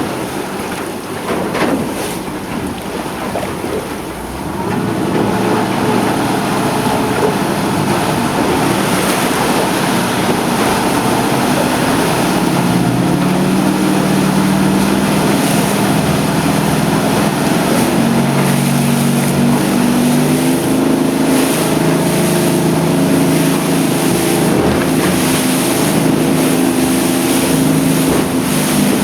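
Yamaha F350 5.3-litre V8 four-stroke outboard throttling up from low speed about four seconds in and running at plane speed, its engine note stepping up in pitch a couple of times. Wind and water noise rushes past the boat.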